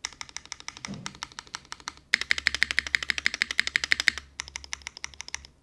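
Fast typing on a HEX.50FE custom mechanical keyboard with lubed Gateron RAW switches, plateless o-ring mount and GMK keycaps: a quick run of keystrokes that grows louder and denser for about two seconds in the middle, then lighter before stopping near the end.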